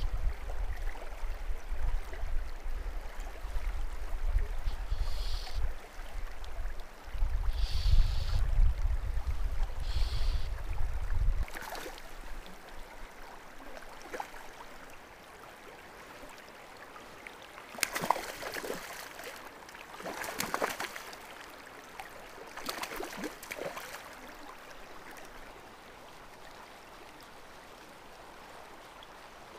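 River water flowing steadily. A low rumble sits on the microphone for roughly the first eleven seconds, and a few short, louder noises come a little past the middle.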